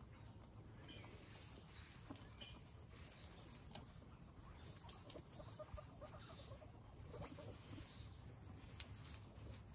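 Faint rustling and chewing from a herd of guinea pigs feeding on carrot slices in straw, with scattered soft clicks and a few brief, faint squeaks.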